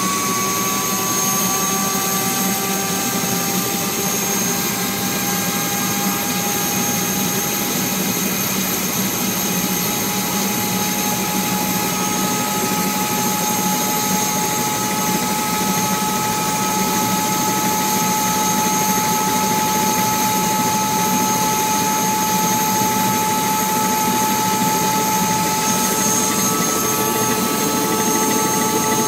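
Helicopter in flight, heard from inside the cabin: a steady high engine whine over a constant rush of rotor and wind noise, its pitch creeping up slightly in the first couple of seconds.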